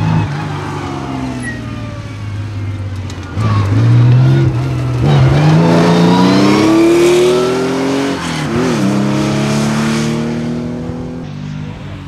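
Air-cooled flat-six engine of a historic Porsche 911 rally car accelerating hard: steady low running at first, then the revs jump about three and a half seconds in and climb through the gears, the pitch dropping briefly at two upshifts, before the sound fades as the car pulls away.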